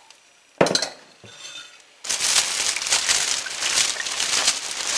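A glass bowl clinks as it is set down about half a second in, with a lighter knock just after. From about two seconds in, a plastic oven cooking bag crinkles steadily as it is gathered up and lifted.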